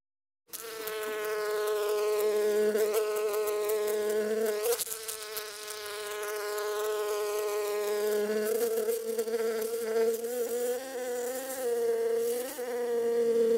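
A bee buzzing in flight: one steady buzzing tone that wavers slightly in pitch, with a brief dip about halfway through.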